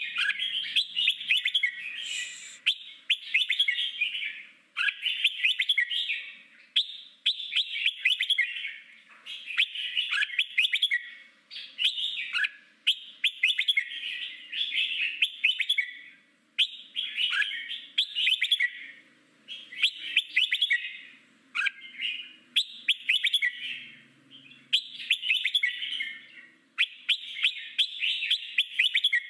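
Red-whiskered bulbul singing its wild, forest-style song: short, quick warbled phrases, one after another about every second and a half.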